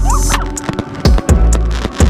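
Background music with deep held bass notes and sharp drum hits.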